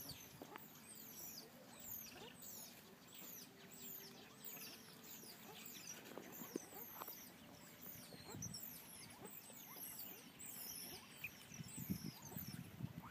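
Faint, continuous high-pitched chirping: many short, falling squeaks a second. Low rustling rises near the end.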